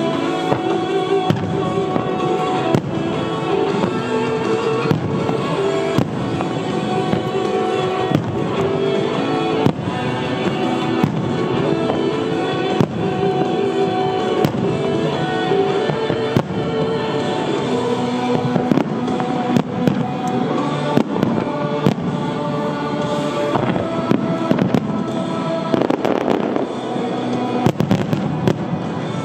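Aerial fireworks shells bursting with repeated sharp bangs over loud music accompanying the display. A rapid cluster of bangs comes near the end.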